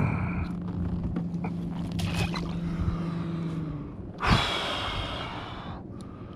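A person breathing hard and letting out a loud gasping breath, lasting over a second, about four seconds in. Under it a steady low hum stops just before the gasp.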